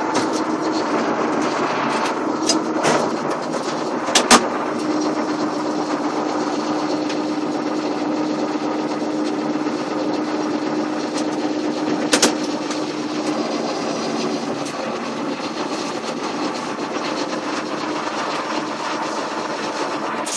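John Deere 7530 tractor's turbocharged diesel engine running steadily under load while pulling a trailer, with a steady drone through the middle. Two sharp knocks stand out, one about four seconds in and another about twelve seconds in.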